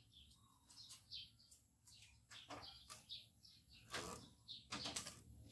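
Faint, scattered chirping of small birds, each chirp short and high, with a few soft rustles of handling in between.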